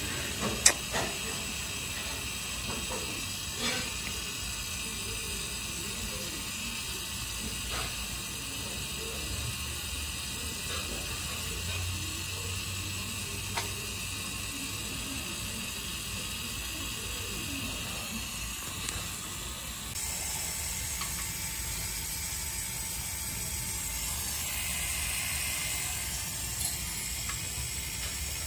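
Electric fuel pump of a Lonking CDM 6060 mini excavator running steadily with a hiss and a few faint clicks, drawing diesel to prime the fuel filters after the system ran dry.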